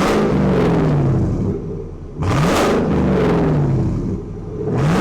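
V8 pickup truck exhaust through a Carbon R muffler, the engine blipped with the throttle: it revs up sharply and falls back toward idle twice, with a third rev starting near the end.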